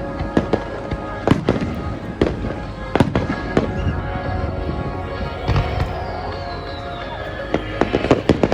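Aerial fireworks shells bursting: a rapid, irregular series of sharp bangs with crackling between them, over music.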